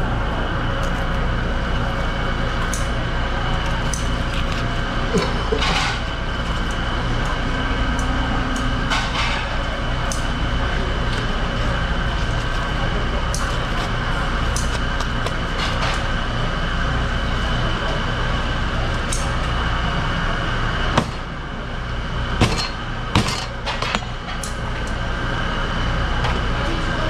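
Steady droning kitchen background noise, with scattered knocks and clacks as a fish is skinned and handled on a plastic cutting board, and a cluster of sharp knocks a little over three quarters of the way through.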